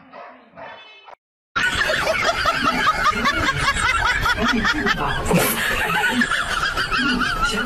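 Loud, continuous laughter, bursting in about one and a half seconds in and going on in quick repeated waves of pitch.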